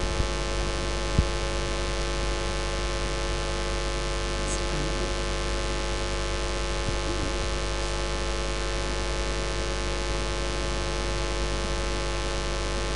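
Steady electrical mains hum, a buzz with many overtones, over a layer of hiss in the audio line. There is one faint click about a second in.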